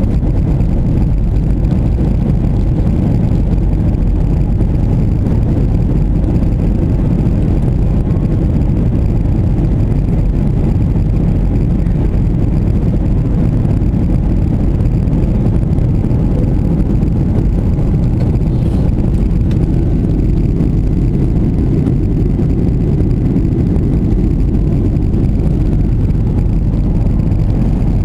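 Steady, low-pitched cabin noise of a jet airliner in flight, the engines and rushing air heard from inside the cabin at a window seat beside the engine, while the plane descends.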